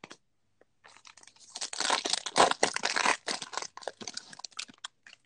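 Foil wrapper of a Panini Select basketball card pack being torn open and crinkled by hand, a dense crackle lasting about four seconds and loudest near the middle.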